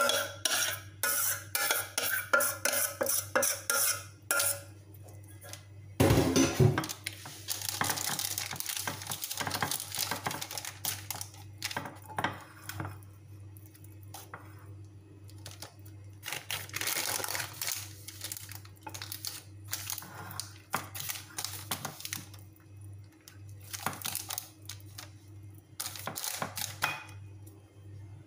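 A metal spoon clinks rapidly against a dish for the first few seconds as mashed potato is knocked off it. After a loud knock about six seconds in, the spoon scrapes and spreads the mashed potato over baking paper in a glass baking dish in irregular strokes.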